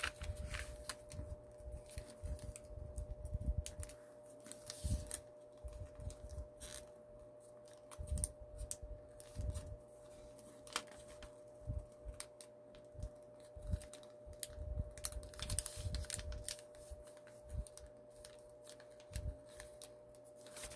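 A sheet of origami paper being folded and creased by hand: irregular soft crackles and taps as the paper is handled and pressed down, over a faint steady hum.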